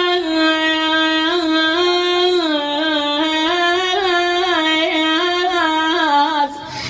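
A solo male munshid singing a mournful nasheed: one voice drawing out long, ornamented melismatic notes that waver and glide, with no clear words, breaking off briefly near the end.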